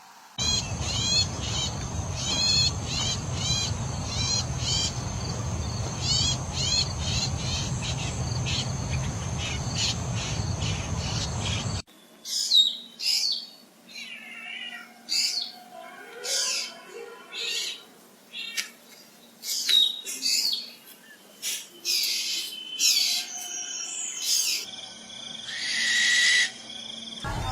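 Birds chirping in quick repeated notes over a steady low rumble, then an abrupt change about twelve seconds in to louder, separate bird calls and whistles with the rumble gone.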